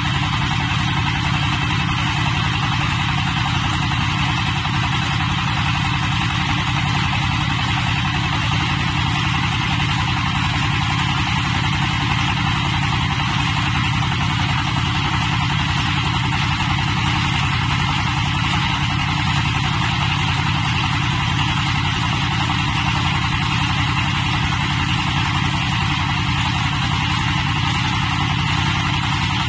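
The 22 HP diesel engine of a portable hydraulic water-well drilling rig running steadily while the rig drills.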